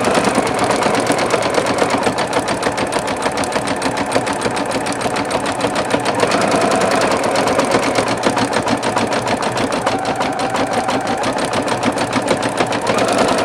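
Singer Futura XL-550 computerized sewing machine stitching steadily at speed, a fast even rhythm of needle strokes. The bobbin area has been freshly adjusted to cure its rattle, so the machine runs without the former clanking.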